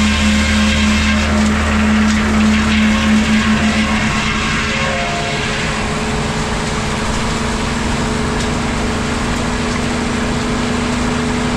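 Engine-driven vintage sawmill machinery running with a steady engine drone. About four to five seconds in, the low rumble drops away and the sound settles slightly quieter.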